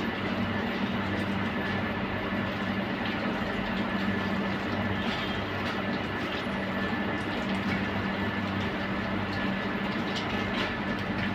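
Steady mechanical hum with a low drone and a thin high whine, unchanging throughout, with a few faint clicks.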